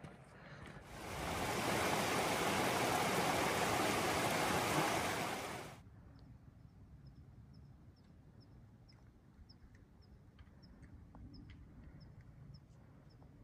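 Rushing water, a loud and even rush that builds about a second in and cuts off suddenly about six seconds in. After it come faint, short, high chirps repeating about twice a second.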